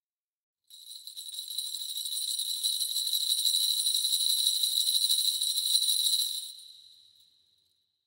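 Kagura suzu, a Shinto bell tree of small metal crotal bells, shaken continuously in a bright, dense jingle. It starts about a second in, swells over a couple of seconds, holds steady, then dies away near the end.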